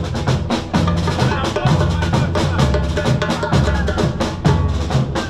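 Drums beating a fast, steady rhythm, with deep bass-drum booms under quicker, sharper hits.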